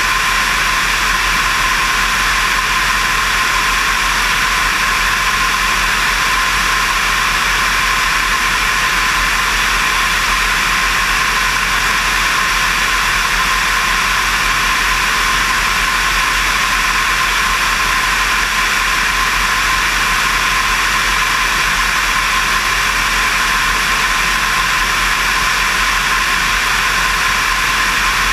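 Steady, loud rush of wind over a camera mounted outside on the wing of a Diamond DV20 Katana light aircraft in cruise flight. A constant high tone runs through it, with no change in pitch or level.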